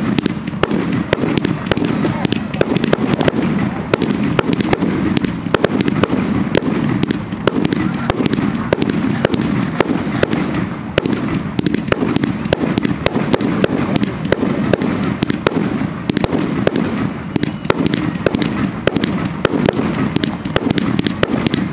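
Aerial fireworks going off in a dense, continuous barrage: many loud bangs and crackles a second over a steady rumble, with no let-up.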